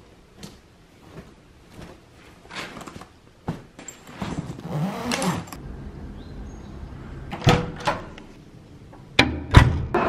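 Handling noises: scattered clicks and knocks, a stretch of rustling about halfway through, and a few sharp thuds near the end.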